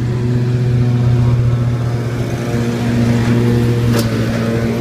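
An engine running steadily at one unchanging pitch, a continuous drone, with a single sharp knock about four seconds in.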